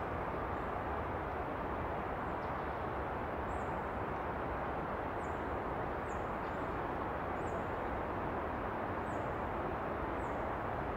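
Steady rushing background noise, with a small bird giving a thin, very high call every second or so.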